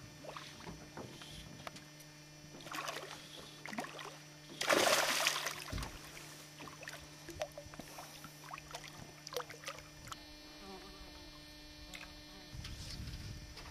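A hooked peacock bass thrashing and splashing at the water's surface, in several short bursts, the biggest about five seconds in. A steady low electrical hum runs underneath.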